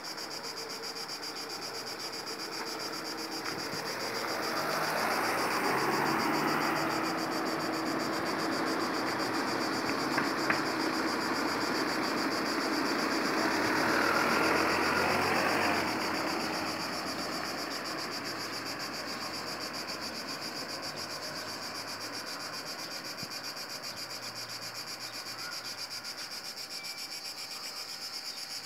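Cicada singing in a tree: a steady, high, buzzing drone that holds throughout. A louder rushing noise swells up a few seconds in and fades again after about twelve seconds.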